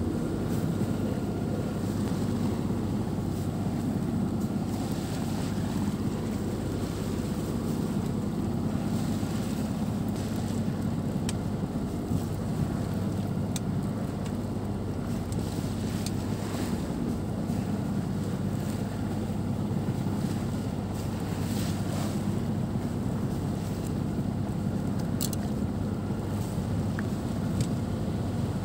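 Steady low drone and rush on board a Dufour sailboat under way, with wind on the microphone and water along the hull, and a few faint ticks.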